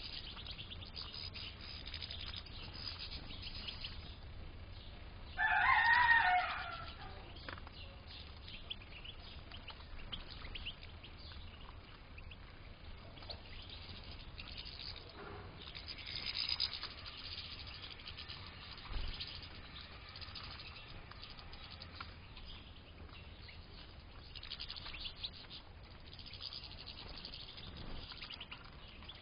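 European goldfinches in an aviary twittering and chirping in short high bursts. About six seconds in comes one louder, drawn-out pitched call lasting about a second and a half.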